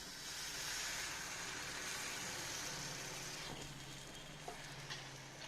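Beaten egg frying in oil in a hot pan: a steady sizzle that eases off after about three and a half seconds, with a couple of light clicks near the end.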